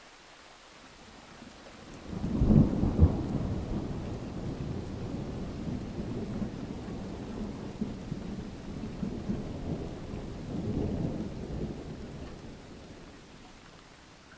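Thunder: a clap breaks about two seconds in with two sharp cracks, then rolls on as a long low rumble that swells once more near the end before fading away.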